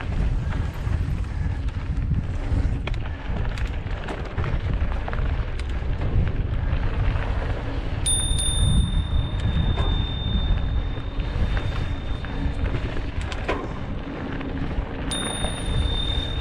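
Mountain bike riding fast down a dry dirt trail: tyres rolling over packed dirt and loose stones, with scattered clicks and rattles from the bike, under a steady low rumble of wind on the microphone.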